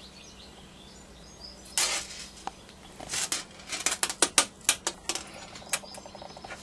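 Faint irregular clicks and rustles of fingers handling nylon fishing line and a small swivel on a tabletop while tying and pulling tight a simple knot. A short rustle comes near two seconds in, and the clicks come thick and uneven from about three seconds in.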